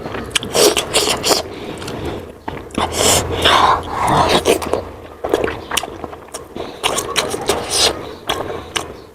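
Eating sounds of someone chewing momos (steamed dumplings): irregular wet clicks and smacks of the mouth, with a longer noisy stretch a few seconds in.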